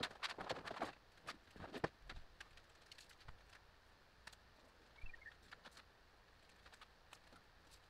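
Thin, flexible FRP wall panel sheets being handled and laid on a plywood table: a quick run of clicks, knocks and rustles in the first two seconds, then only faint scattered taps.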